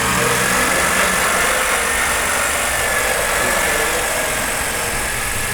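Electric woodworking power tool running steadily, a broad rushing noise with a faint high whine that sags a little in pitch midway.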